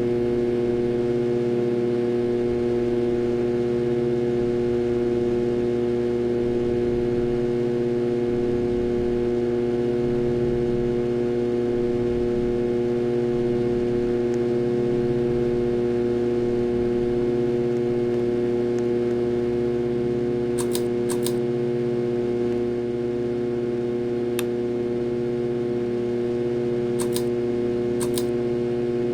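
Harbor Breeze Ocracoke ceiling fan motor running with a loud, steady hum of several pitches, the sound of a bad motor. A few sharp clicks come in the last third.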